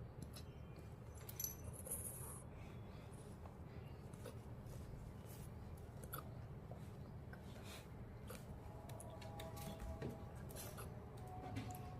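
Puppy hiccuping: faint, irregular small clicks about once a second.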